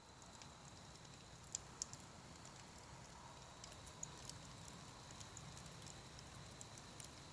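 Near silence: faint outdoor background hiss with a few scattered small clicks.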